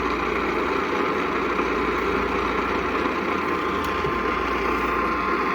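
Steady hiss and rumble of radio static from a weakly received broadcast relay. A faint steady tone rises out of the static near the end.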